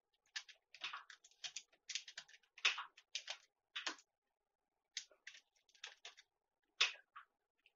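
Computer keyboard being typed on: faint, irregular key clicks in quick runs with short pauses.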